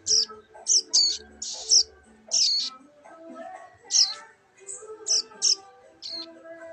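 Young bar-winged prinia chick chirping: about ten short, sharp, high-pitched chirps at irregular intervals, over background music.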